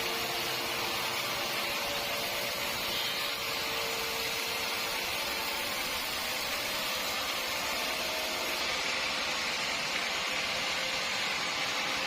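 Sawmill machinery running steadily: an even hissing mechanical noise with a faint steady hum underneath, no change in pitch or level.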